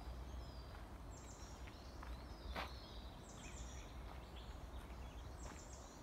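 Woodland birds singing and calling: many quick, high chirps and trills overlapping, one call louder about two and a half seconds in, over a steady low rumble.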